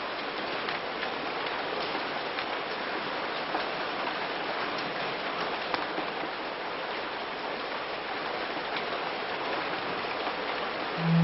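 Falling water spraying steadily: an even hiss with faint scattered ticks.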